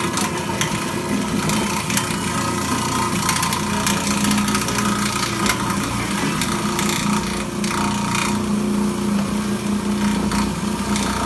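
Electric food grater running with a steady motor hum, with continuous scraping as peeled bananas are pressed into it and grated into masa.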